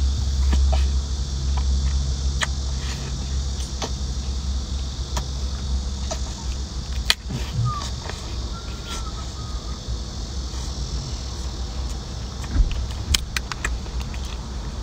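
Sucking and slurping at a cooked lobster's shell, with scattered sharp clicks of shell. Near the end comes a quick run of clicks and cracks as the shell is peeled by hand. A low steady rumble runs underneath.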